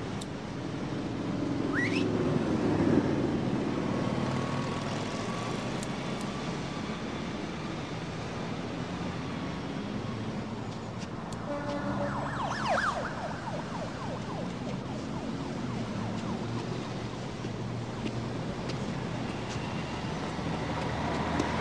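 City street traffic noise, with two short rising whines, one about two seconds in and one near the middle.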